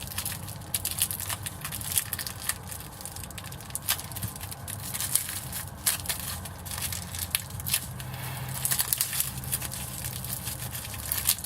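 Thin plastic crinkling and crackling in irregular snaps as it is handled and pulled off a cheap multi-tool.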